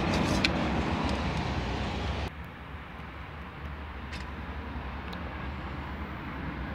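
Steady outdoor background noise, a low rumble with a hiss over it, which drops off abruptly about two seconds in and carries on more quietly, with a few faint clicks.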